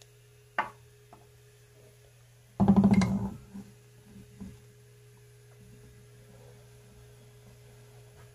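Steady electrical hum, with small clicks of steel lathe tool bits being handled on a table. A short, loud sound comes about two and a half seconds in.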